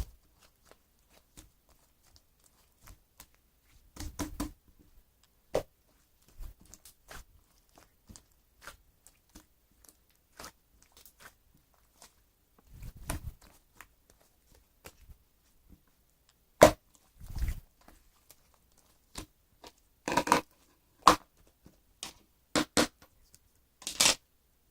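Slime being squished, pressed and pulled by hand, making irregular sticky clicks, pops and crackles. The louder clusters come about four, thirteen and seventeen seconds in, and in a run of pops near the end.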